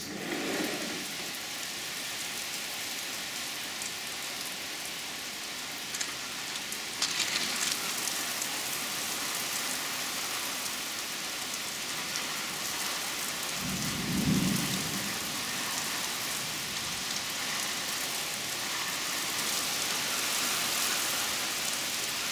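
Steady rain pouring on a wooden deck, lawn and trees, with a brief low rumble about two-thirds of the way through.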